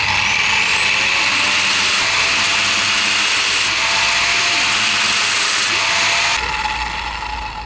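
Electric grinder spinning up with a rising whine and running steadily as it dresses the bent metal sealing plate of a diesel fuel filter flat, so the seal will not suck air. It is switched off a little over six seconds in and winds down.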